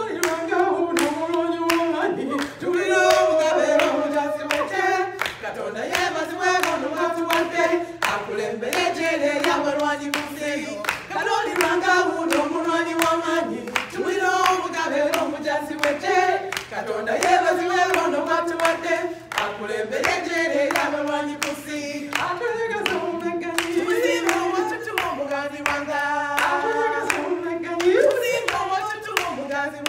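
A group of women singing together, with steady hand clapping keeping the beat.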